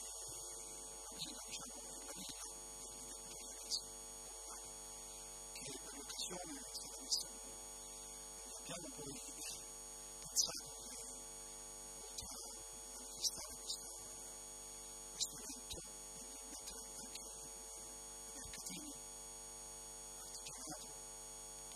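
Steady electrical mains hum with a thin high whine over it, broken now and then by a few short, faint clicks.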